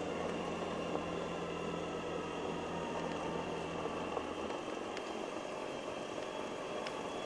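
Vehicle engine and road noise while driving: a steady low engine hum under an even rush of road noise, the hum easing off about four and a half seconds in.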